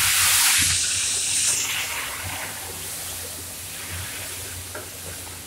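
Food hitting a hot pan on a gas range: a loud sizzling hiss that is strongest for about the first second and a half, then dies down to a softer sizzle.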